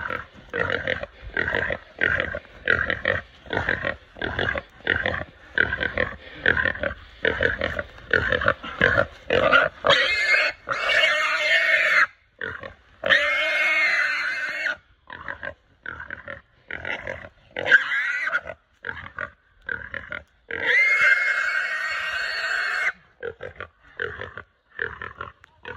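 Feral pig squealing while pinned by a hunting dog and held by its back legs: a rapid string of short squeals, about three a second, then long drawn-out screams about ten, thirteen and twenty-one seconds in.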